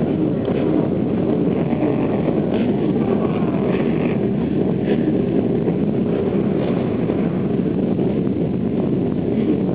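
Many ATV engines running together in the distance, with faint revs rising and falling, mixed with wind rumbling on the microphone.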